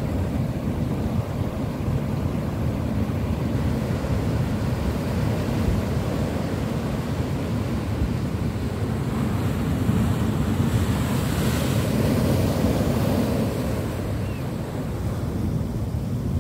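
Ocean surf breaking on rocks and washing up a sand beach: a continuous low rumble of the waves with wind buffeting the microphone. The hiss of a wave's foaming wash swells about two-thirds of the way through, then eases.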